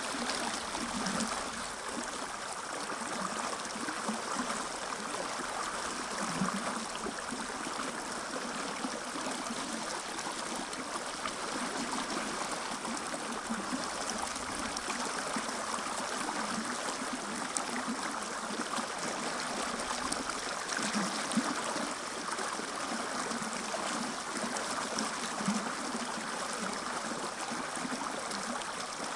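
Fast-flowing mountain river running with a strong current, a steady rushing of water.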